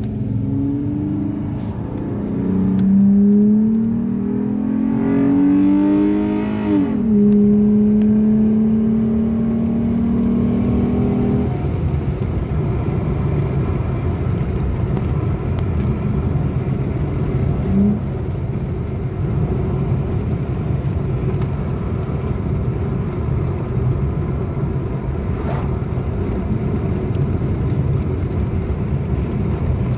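Car engine revved by stomping the gas pedal, the pitch rising and falling, then held at steady high revs. About eleven seconds in it changes to a steady, rougher engine drone that carries on.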